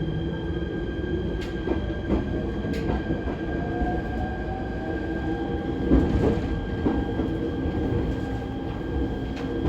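ET127-series electric train running, heard from on board, with the steady whine of its Toyo IGBT VVVF inverter and a faint tone slowly rising in pitch from about four seconds in. Scattered clicks from the wheels and rails sound over a constant rumble.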